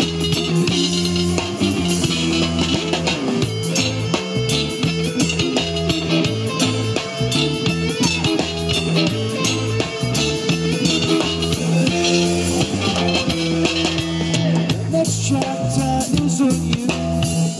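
Live rock band playing an instrumental passage: electric guitar to the fore over bass guitar and drum kit.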